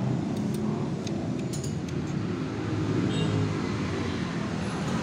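Light metallic clicks as steel clutch plates are slid by hand onto the splined clutch basket of a Suzuki Raider 150, over a steady low background rumble.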